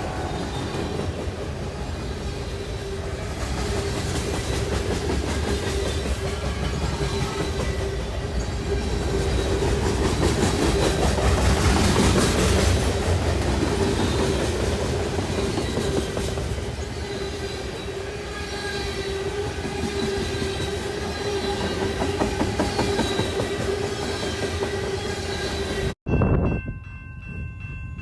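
Train passing close by, its wheels clacking rhythmically over rail joints under a steady rumble and a continuous whine. After a sudden cut near the end, a train horn sounds with several held tones.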